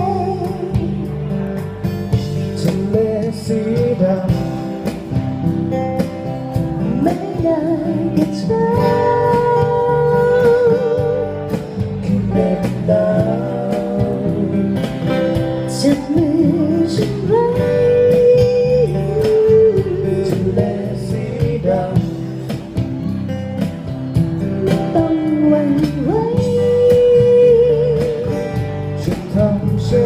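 Live band music: a woman singing into a handheld microphone, holding notes with vibrato, over acoustic guitar and electric bass.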